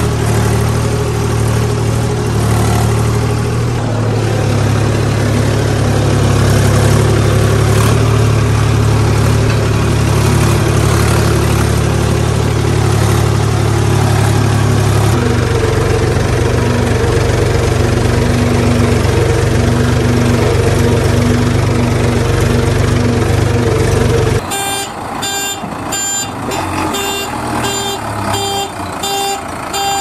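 Diesel tractor engine running steadily, its note shifting about 4 and 15 seconds in. Near the end it cuts off suddenly and a repeating beeping, a little over once a second, takes over.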